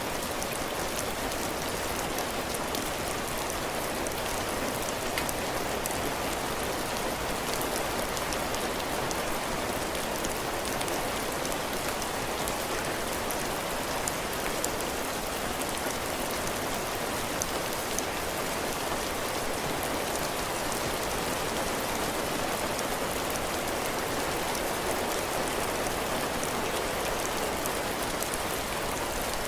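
Heavy rain falling steadily on a cabin porch, drops hitting the ground and the roof, with fine scattered drop ticks over an even hiss.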